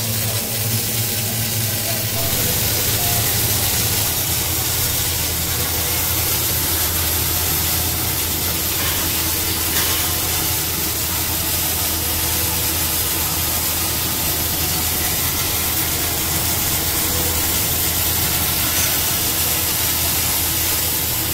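Automatic arc welder welding a spiral steel flight onto a steel pipe: the arc gives a steady hiss over a low, steady machine hum.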